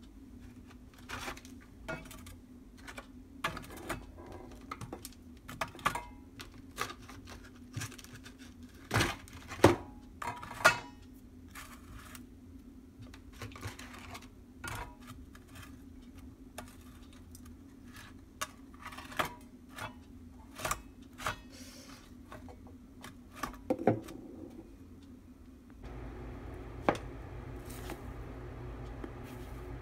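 Kitchen handling sounds: a run of sharp clicks and knocks from an air fryer basket and frozen hash brown patties being laid in it, over a steady low hum. About 26 seconds in the background changes and a few knocks come from the bowl of raw eggs being worked with a spatula.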